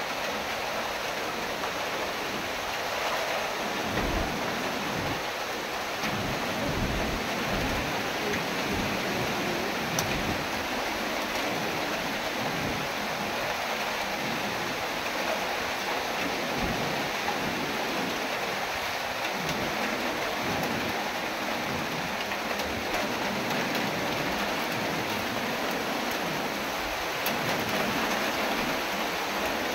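Heavy tropical-storm rain falling in a steady, dense hiss. Strong gusting wind comes through in short, uneven low rumbles every few seconds.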